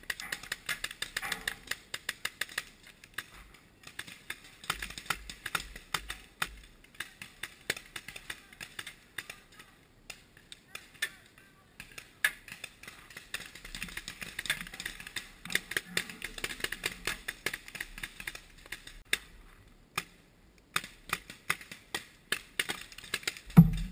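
Paintball markers firing: sharp, irregular pops coming in rapid bursts, with one much louder knock near the end.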